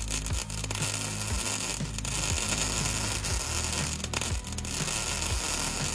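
Prime Weld MIG180 welder's arc crackling and sizzling steadily as a bead is run over a crack in a steel mower deck, with a few brief breaks in the arc about two and four seconds in.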